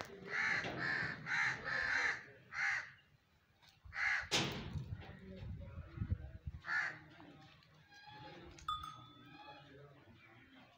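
Crows cawing: a quick run of about six caws in the first three seconds, then a few scattered, fainter calls. A short, sharp noise burst about four seconds in.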